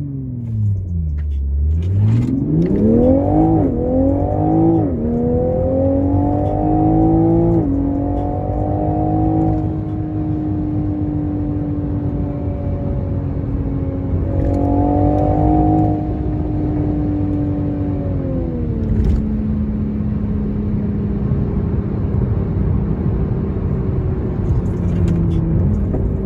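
2022 Toyota GR Supra on its stock exhaust: the engine note falls as revs drop, then climbs hard through the gears with several quick upshifts, and settles into a steady cruise. Later the revs rise briefly and then drop off again.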